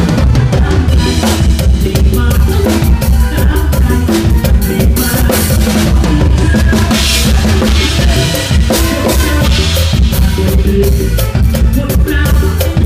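Live drum kit played close up in a fast mor lam sing groove, kick drum, snare and cymbals struck in a steady dense pattern, with the rest of the band playing along.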